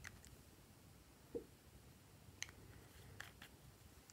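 Faint clicks and light taps of small plastic bottles being handled, with one soft knock about a second and a half in.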